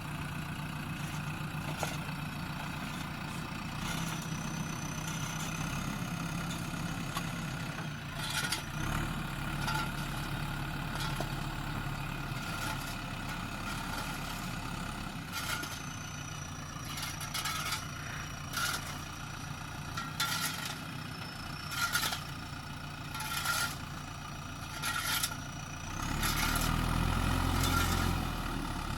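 JCB backhoe loader's diesel engine running steadily, with repeated metallic clanks and knocks from the machine at work and a thin high whine that comes and goes. The engine revs up louder near the end.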